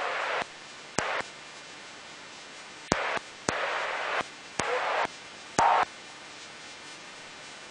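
Spectator crowd noise heard only in six short bursts, each cutting in and out with a sharp click, over a steady hiss. The last burst is the loudest.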